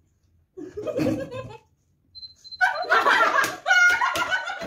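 Several women laughing hard together, breaking out about two and a half seconds in after a short muffled voice.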